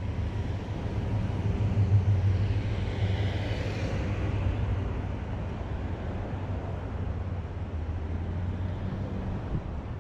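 City street traffic: a motor vehicle's engine running close by with a steady low hum over general traffic noise, loudest about two seconds in and easing off after.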